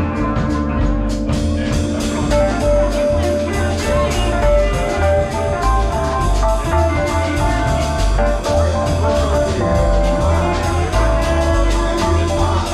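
Live band playing a bluesy number with drums, bass and held instrument notes over a steady pulsing bass line.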